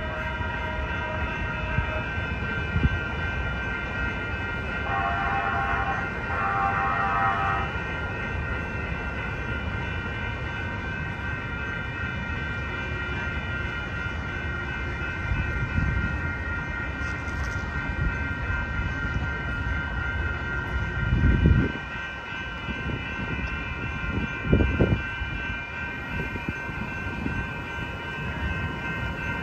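Railroad crossing warning bells ringing steadily over the rumble of a passing passenger train. About five seconds in, a train horn sounds two blasts, and two heavy low thumps come about twenty-one and twenty-four seconds in.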